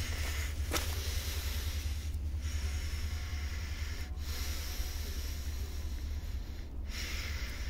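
Handheld outdoor recording noise: a steady low rumble under a breathy hiss that thins out briefly three times, with one light click about a second in.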